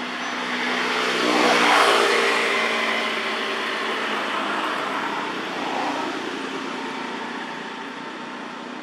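A motor vehicle passing by. Its noise swells to a peak about two seconds in, then fades slowly, with a smaller rise near six seconds.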